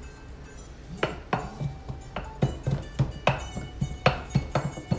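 Wooden pestle pounding garlic cloves in a wooden pilón, a run of short dull knocks about three a second starting about a second in, over background music.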